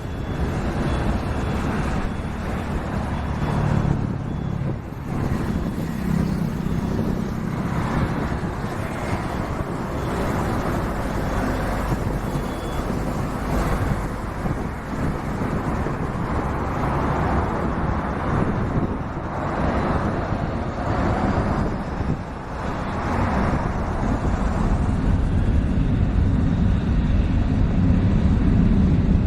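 Steady low rumble of a vehicle in motion, with shifting noise in the mid range.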